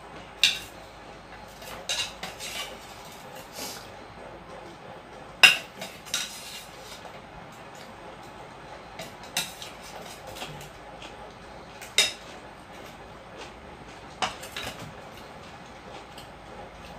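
Scattered clinks and taps of metal plates and serving spoons during a meal eaten by hand. The clinks are sharp and ring briefly; the loudest come about five and a half seconds in and again near twelve seconds.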